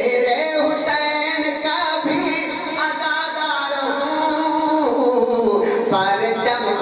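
A man singing verse in a slow, drawn-out melody with long held notes, amplified through a microphone.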